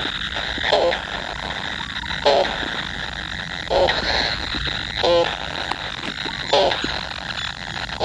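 An animal's short call, repeated five times at a regular pace of about one every one and a half seconds, over a steady high hiss.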